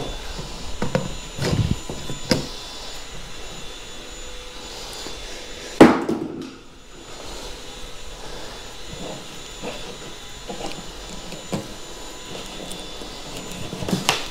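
Knocks and scraping from hand work on drywall at a ceiling speaker cutout, with one sharp, loud knock about six seconds in, over a faint steady hum.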